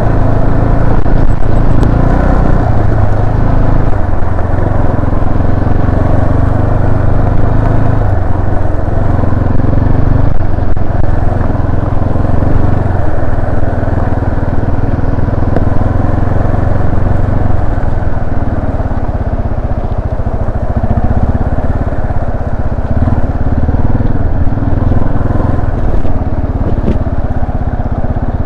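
Yamaha Serow 250's carbureted single-cylinder engine running steadily as the trail bike is ridden, its note wavering slightly with the throttle.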